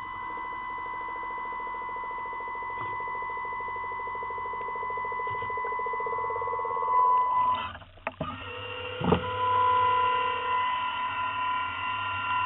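Steady high electric whine of a model submarine's drive, heard through its onboard camera, with a fast fine pulsing under it. About eight seconds in it breaks off briefly with a click and comes back at a different pitch.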